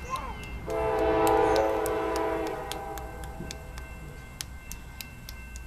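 A diesel locomotive's multi-chime air horn sounding one long blast of about two seconds, then fading out.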